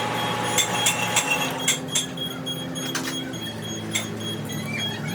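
A handful of sharp, irregularly spaced clicks and light knocks, most of them in the first two seconds, over a steady low machine hum.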